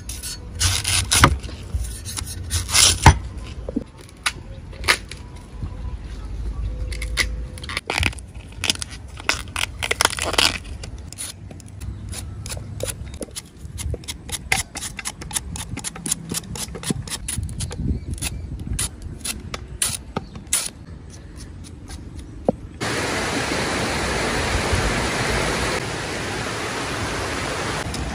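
Cleaver shaving and chopping a young bamboo shoot on a wooden chopping block: a long run of sharp, irregular knife strikes. About three-quarters of the way through, the strikes stop and water starts running steadily into a metal bowl of the cut shoot slices.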